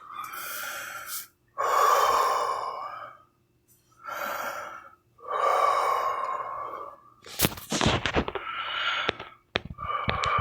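A person breathing heavily close to the microphone: four long, breathy exhales about a second each with short pauses between, followed by a series of sharp clicks and taps near the end.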